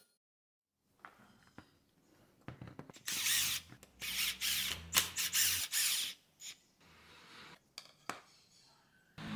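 Makita cordless impact driver run in several short bursts, backing out the screws that hold a trim router's base plate. Scattered clicks and knocks of the tool and plate being handled come before and after.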